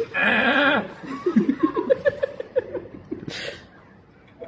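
A short, wavering bleat, then people laughing in quick short bursts.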